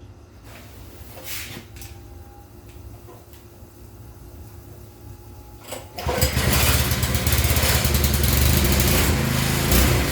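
Gasoline pressure washer's small engine starting about six seconds in and then running steadily and loudly; a few faint knocks come before it.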